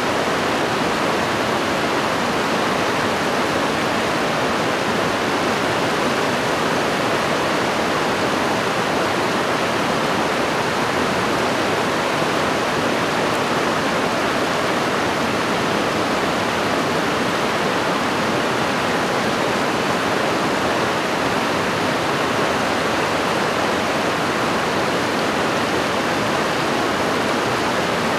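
Fast mountain stream rushing over rocks in white water, a steady, unbroken rush.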